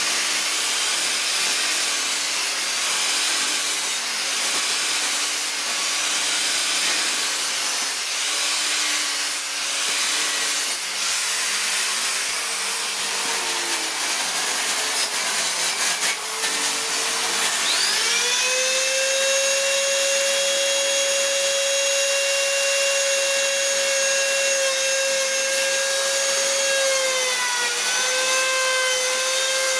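Steady rushing, grinding noise, then about 18 s in an electric die grinder with a ball-shaped carving burr spins up to a steady high whine. Its pitch dips briefly near the end as the burr bites into the wood.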